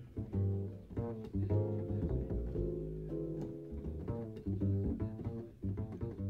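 Music: an upright double bass plucked in a walking line, with guitar-like chords above it, cutting in abruptly at the start.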